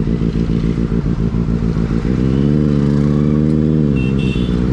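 Benelli 600i's four-cylinder engine running under the rider as the bike moves; the engine note pulses at first, then smooths out and holds steady from about two seconds in, dipping briefly in pitch near the end.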